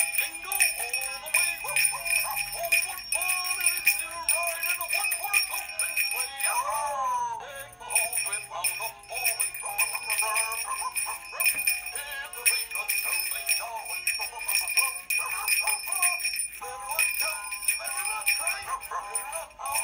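Dandee 2009 animated ear-flapping plush dog Christmas stocking playing its electronic Christmas song with jingle bells from its built-in speaker. There is a sliding pitched sound a little past a third of the way through.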